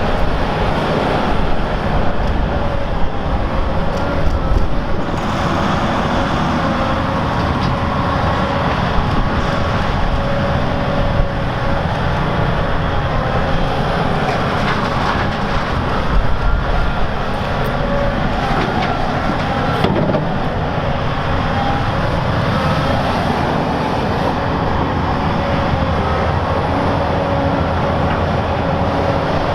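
Volvo EC950F excavator and A60H articulated dump trucks working together: a steady diesel engine drone with a whine that rises and falls slightly, and occasional knocks as the machines work.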